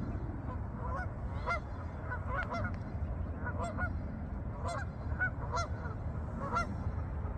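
A flock of geese honking: many short calls, some overlapping, keep coming throughout, over a low steady rumble.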